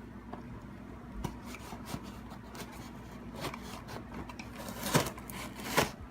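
Handling noise: rubbing and small clicks over a steady low hum, with two louder knocks near the end.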